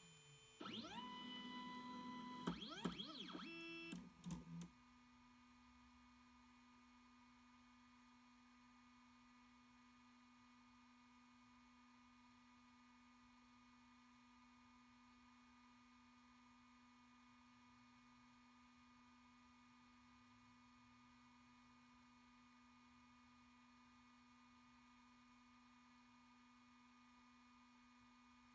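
Ultimaker 2GO 3D printer's stepper motors whining in tones that glide up and down in pitch for the first four and a half seconds, then stopping, leaving only a faint steady hum.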